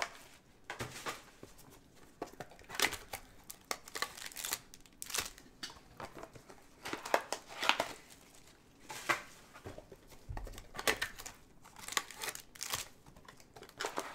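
Plastic wrapping on sports-card boxes and packs crinkling and tearing as it is unwrapped and handled, in irregular bursts.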